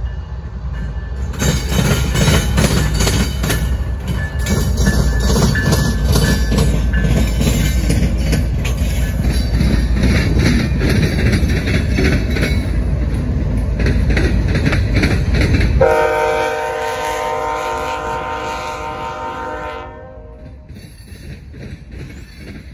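A Canadian National freight train passing close: the two diesel locomotives and the wheels on the rails make a loud, steady rumble with clatter. About sixteen seconds in, a locomotive horn sounds one long chord for about four seconds, then the sound drops to the quieter rolling of the freight cars.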